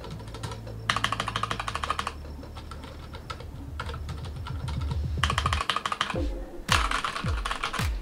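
Keychron K8 mechanical keyboard with tactile switches being typed on fast and hard: three quick bursts of rapid keystroke clacks, about a second in, at about five seconds, and near the end.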